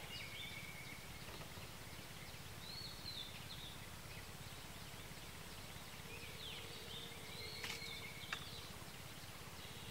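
Birds calling: scattered short chirps and a brief arching whistle, over a steady low rumble, with a couple of faint clicks near the end.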